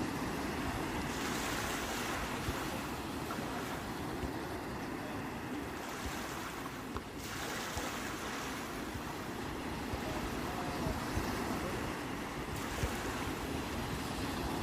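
Sea waves breaking and washing on the shore, the surf swelling and easing with a brief lull about seven seconds in, over a low wind rumble.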